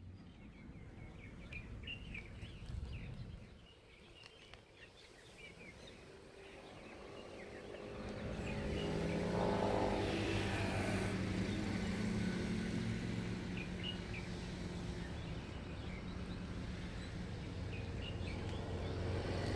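A boat's engine running at a low, steady hum that grows louder from about eight seconds in, with short bird chirps scattered throughout.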